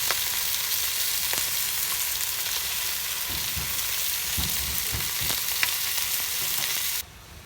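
Food sizzling steadily in a hot pan, with a few light knocks and clicks, cutting off abruptly near the end.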